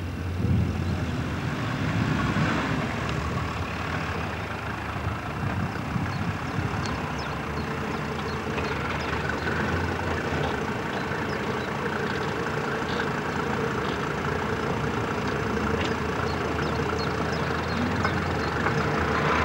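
Four-wheel-drive vehicle's engine running steadily at low revs as it crawls over a steep, rutted off-road embankment.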